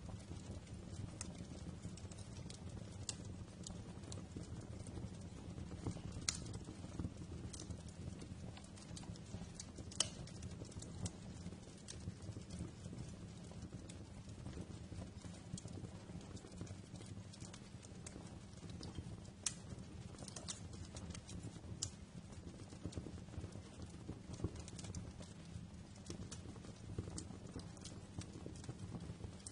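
Wood fire crackling in a fireplace: irregular sharp pops and snaps over a low, steady rumble of the flames.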